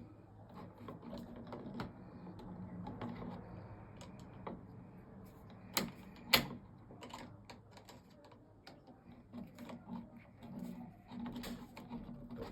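Small clicks and rattles of tools and plastic dashboard trim being handled, with two sharp knocks about six seconds in, over a low steady hum.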